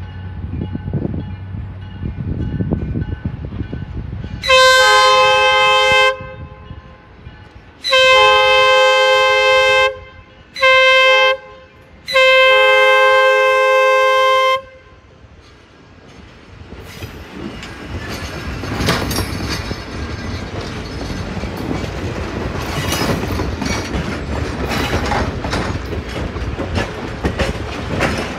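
A diesel passenger train's air horn sounds the grade-crossing signal, two long blasts, one short and one long, loud and steady. The train then rolls past, its wheels clicking over the rails in a steady clatter.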